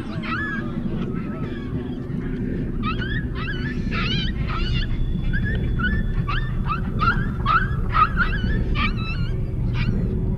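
A puppy yelping in a rapid series of short, high squeals as a hamadryas baboon grabs and carries it off.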